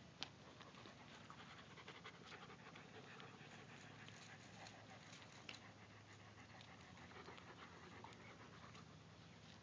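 Faint panting of an adult Shiloh Shepherd dog, with small scattered ticks and rustles and one sharp click just after the start.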